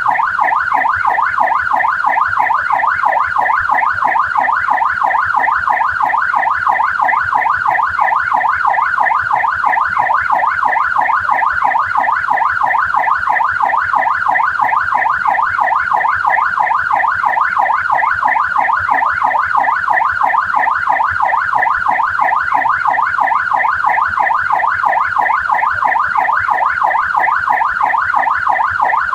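Australian police car siren in yelp mode: a fast, even up-and-down wail repeating several times a second.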